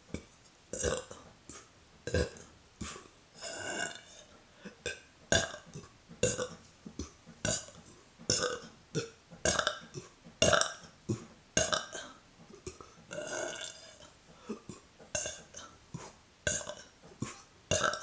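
A woman burping over and over from deliberately swallowed air: a long string of short belches, roughly one a second, with short clicks in between.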